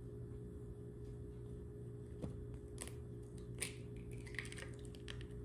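A peeled banana drops into a plastic blender cup: a few light clicks and knocks on the plastic, the sharpest about three and a half seconds in, over a faint steady low hum.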